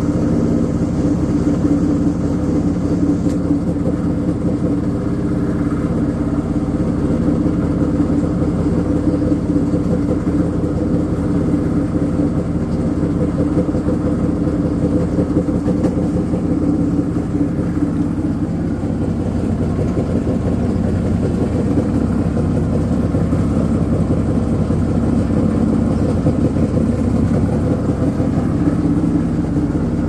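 LG front-load washing machine running with a loud, steady mechanical drone, a constant low hum that holds its pitch.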